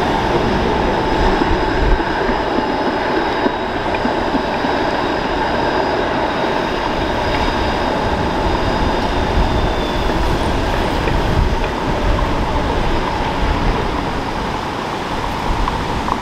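Bombardier Flexity Outlook streetcar running along street track, a loud, steady noise mixed with passing road traffic.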